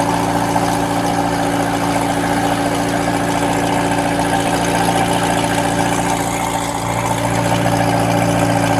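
Vehicle engine idling steadily, a constant hum that gets slightly stronger in the low end about seven seconds in.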